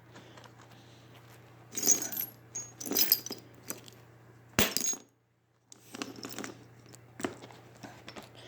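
Loose steel bolts and nuts clinking and rattling against each other as they are picked through by hand, in several short bursts of clinks.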